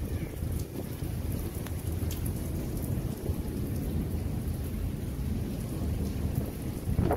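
Steady rain falling, with a constant low rumble under it and faint scattered drop ticks; a short louder swell comes near the end.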